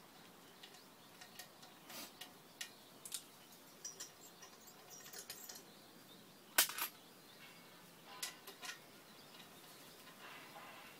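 Scattered light metallic clicks and taps from hand work on the small air-cooled engine of a Koshin engine pump, while its cylinder head is being dismantled. One sharp clink about six and a half seconds in is the loudest.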